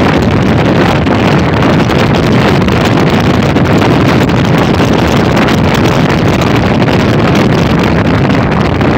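Loud, steady wind rush buffeting the microphone of a phone filming from a moving motorcycle, with the bike's road noise underneath.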